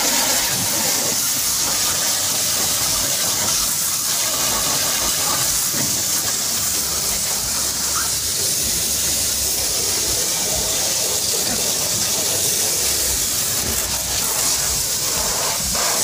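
Water jet from a hose spray nozzle hissing steadily as it spatters on a car's tyre, wheel arch and door panels.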